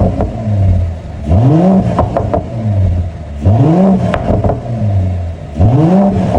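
Mercedes-AMG CLE53's turbocharged inline-six revved three times, each rev climbing and falling back to idle, with crackles from the exhaust as the revs drop.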